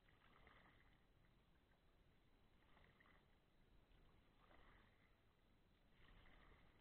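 Faint kayak paddle strokes: four short splashes of the blade dipping into the water, about one every second and a half.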